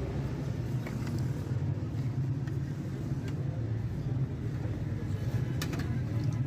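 Steady low rumble of road traffic and engines, with a few sharp clicks or clinks near the end.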